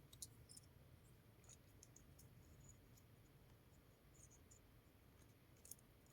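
Near silence with a few faint, short clicks scattered through it.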